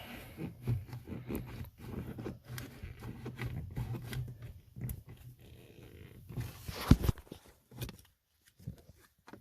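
A plastic food container scraping and clicking against a car door's trim and latch area as it is worked around to reach the child safety lock, with a sharp knock about seven seconds in.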